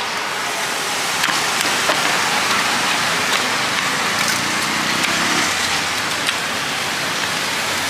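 Cooking oil sizzling steadily at a street stall where bananas are fried. A few light wooden clicks come from a hinged board pressing peeled bananas flat.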